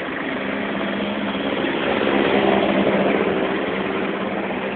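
A motor vehicle's engine running steadily with a low hum, loudest around the middle, over a constant noisy wash.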